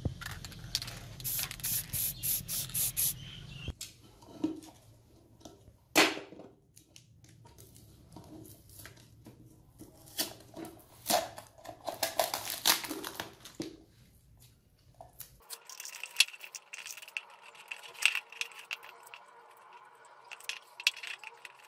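Masking tape and wrapping being peeled and torn off a painted steel lantern: crinkling, tearing and sharp snaps of tape. A quick run of short sharp bursts, about three a second, comes near the start, and one sharp snap is the loudest sound.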